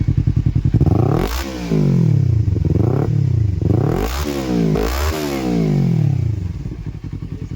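Kawasaki Ninja 300's parallel-twin engine revved through an Akrapovic slip-on exhaust: several throttle blips, the pitch climbing and falling back each time, then settling to idle near the end.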